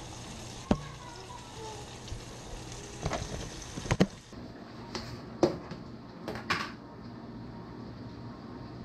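A plastic food container being handled, with about five sharp knocks and clatters spread over several seconds and a brief rattle near the end, as white trout fillets are shaken in fish-fry breading with the lid on.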